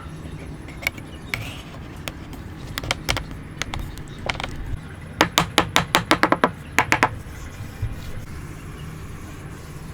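Light, sharp taps and knocks of hard wood on wood as wooden parts are worked or fitted. They come scattered at first, then as a quick even run of about ten taps in the middle, with a few more just after, over a steady low hum.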